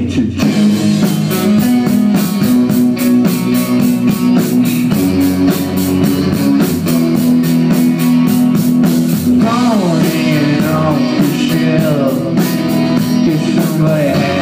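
Live rock band playing, with guitars leading over drums that keep a steady cymbal beat.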